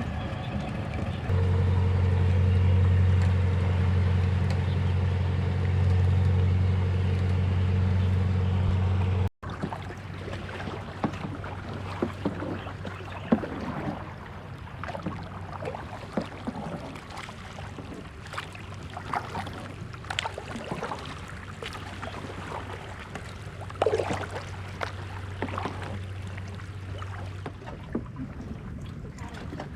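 A small boat's engine running with a steady low hum, loud at first, then, after a sudden break about nine seconds in, fainter with scattered short knocks over it, dying away near the end.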